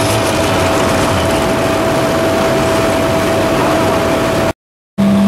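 Super stock diesel pulling truck's engine running hard under load as it drags the sled, loud and steady with a constant whine through it. It breaks off abruptly near the end.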